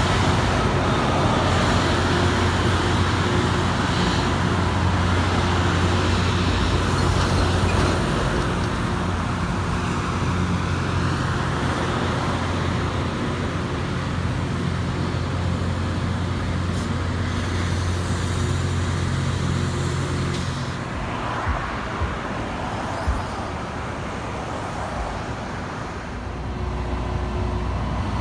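Loram rail grinder train passing close by with its grinding units running: a loud, steady roar of grinding over the hum of its diesel engines. The sound drops off about two-thirds of the way through as the last cars pass, followed by a few sharp knocks.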